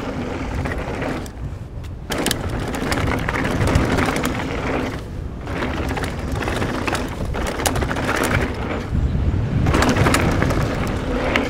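Specialized Enduro mountain bike ridden fast down a dirt freeride trail: steady tyre roll with the bike rattling and knocking over bumps, broken by two short lulls about two and five seconds in.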